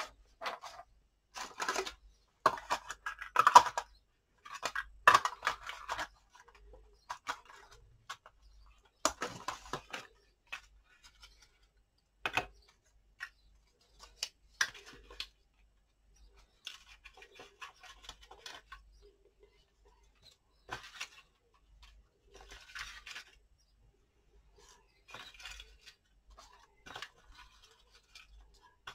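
Irregular rustling, crinkling and light clicks of paper and small craft pieces being handled and searched through, in short bursts with pauses between.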